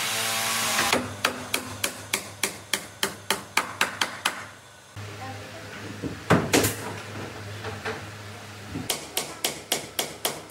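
Rapid hammer blows on wood, about four a second, in two runs with a pause between. During the pause a low hum sounds and there are a couple of heavier knocks.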